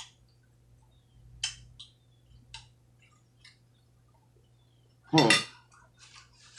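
A few sparse, light clinks of cutlery against a plate while eating, with one short vocal sound about five seconds in.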